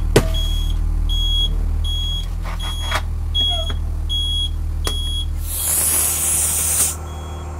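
School bus low-air warning buzzer beeping about once every three-quarters of a second over the running engine: air pressure in the drained front tank has fallen below the warning point. A few sharp clicks sound, and about five and a half seconds in there is a loud hiss of air for over a second, after which the beeping is fainter.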